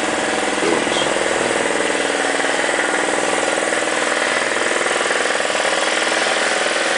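A motor running steadily at a constant speed.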